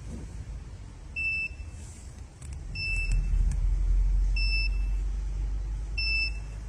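Digital weighing indicator of a stainless steel platform scale beeping: four short, high, identical beeps about a second and a half apart. The display shows 'Lo' beside the 1.000 kg reading as it beeps. A low rumble runs underneath.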